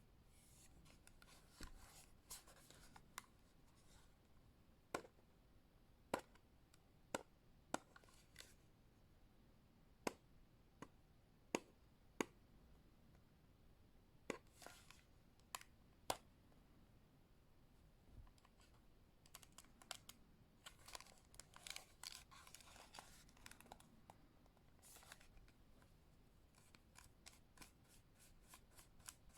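Quiet handling of a Western Digital My Passport external hard drive's plastic case: a series of sharp single taps in the first half, then stretches of scratchy rubbing and a quick run of light ticks near the end.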